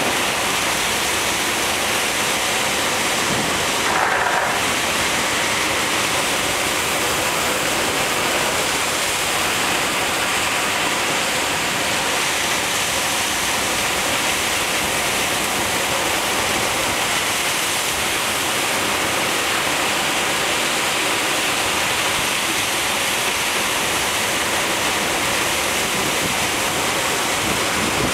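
Ocean surf breaking over a rocky reef and washing into a tide pool: a loud, steady rush of whitewater, with a brief louder sound about four seconds in.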